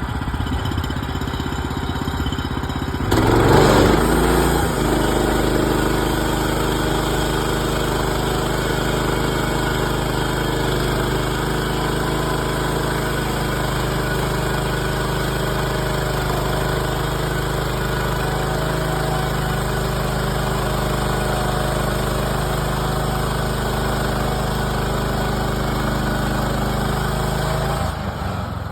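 Woodland Mills HM130 Max portable band sawmill's gas engine idling, then revving up about three seconds in as the band blade engages. It runs steadily under throttle with the blade turning for most of the time, then drops back to idle near the end.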